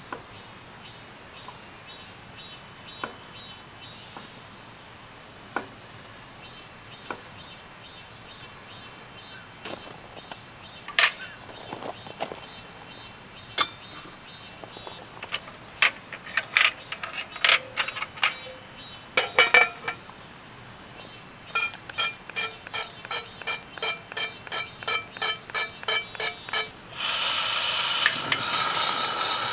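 Handling sounds: scattered clicks and knocks, then a run of sharp mechanical clicks at about two a second, then a steady hiss starting near the end. Faint insect chirping runs underneath.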